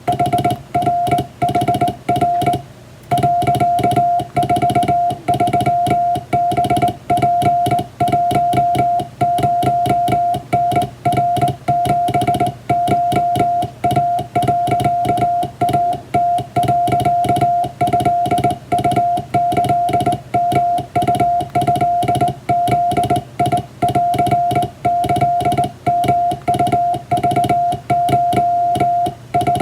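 Morse code sent by hand on a straight key: a steady tone of about 700 Hz keyed on and off in irregular dots and dashes, spelling out a Japanese wabun telegram, with a click at the edges of the keyed tones. The sending pauses briefly about three seconds in.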